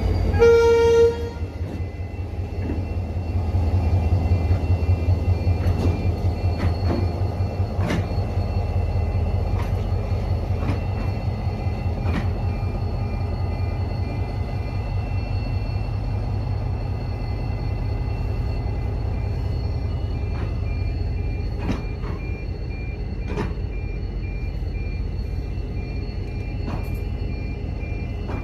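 A train sounds a short horn blast, then its diesel engine rumbles steadily as it moves, with occasional faint clicks.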